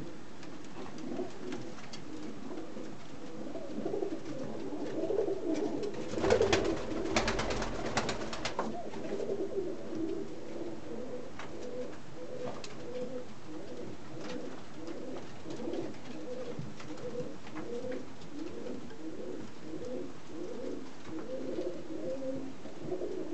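Fantail pigeons cooing over and over in low repeated phrases. A brief flurry of clicks and knocks about six seconds in is the loudest part.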